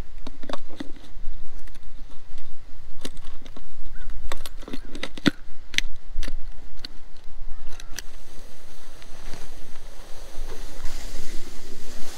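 Sharp clicks and knocks of a lay-flat irrigation hose's coupling being fitted by hand onto a sprinkler line, a fresh gasket pushed in to seal the leaking junction. From about eight seconds in, the clicks stop and an even rustle takes over as the hose is dragged through dry grass.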